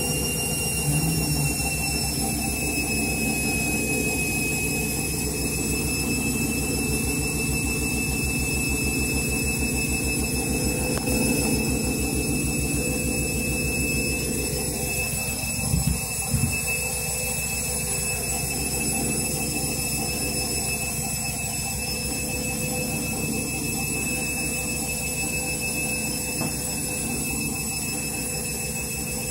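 Candy washing machine spinning after the main wash. The motor whine rises in pitch at the start, then holds steady over a low rumble from the drum, with two brief knocks about halfway through.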